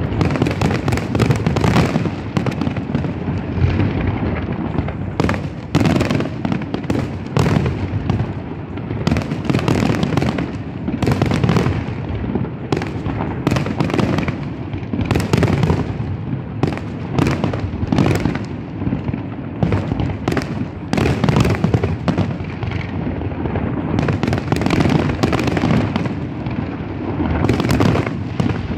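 Fireworks display: a dense, unbroken barrage of aerial shells bursting, several sharp bangs a second overlapping over a steady low rumble.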